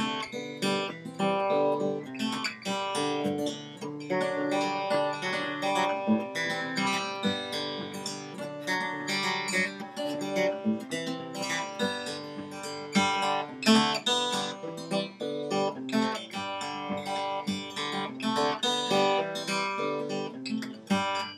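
Background music: an acoustic guitar picking a quick, steady run of notes with some strummed chords.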